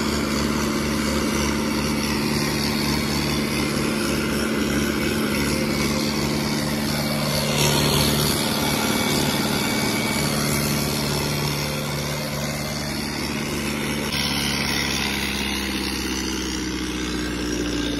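Mahindra 575 tractor's turbocharged four-cylinder diesel engine running steadily under load, pulling a spring-tine tiller through the soil.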